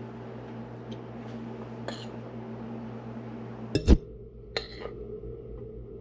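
Glass French press handled on a kitchen counter: a few light clinks of glass and a metal spoon as ground coffee is spooned into the carafe, with one louder knock just before four seconds in. A steady low hum runs underneath.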